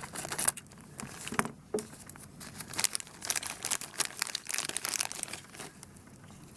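Plastic packaging being handled, crinkling and rustling in irregular crackles.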